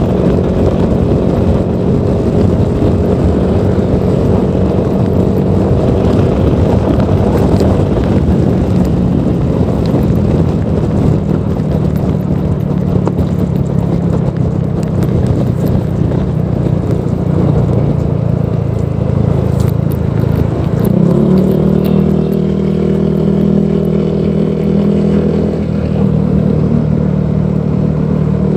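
Honda PCX 160 scooter's single-cylinder four-stroke engine running through a Proliner Neo Silent aftermarket exhaust, a steady note whose pitch shifts about two-thirds of the way through.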